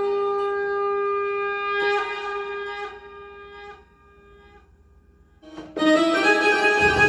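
Roland XPS-10 keyboard playing a woodwind-like tone: a long held note, a second attack about two seconds in that fades out by about four seconds in. Near the end a new, louder patch starts, with several notes sounding together.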